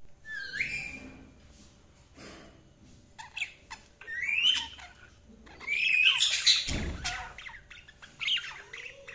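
Budgerigars chirping and squawking in short bursts of rising, warbling calls, with a louder cluster of chirps about six seconds in.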